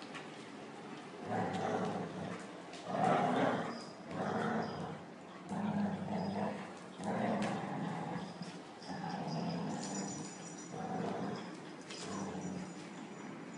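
Dogs growling in play while wrestling and tugging over a toy, a string of growls each about a second long, starting about a second in.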